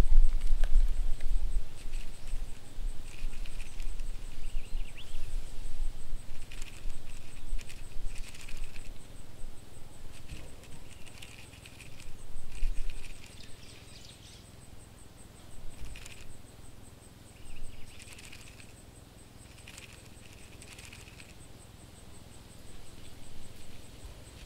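Cockroach scuttling: faint scratchy pattering in short, irregular clusters, with a faint steady high whine underneath. A low rumble is loudest in the first couple of seconds, then fades.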